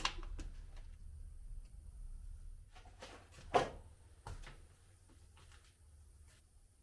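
Scattered knocks and clicks of hard objects being handled, the loudest about three and a half seconds in, over a low rumble that fades away after about four seconds.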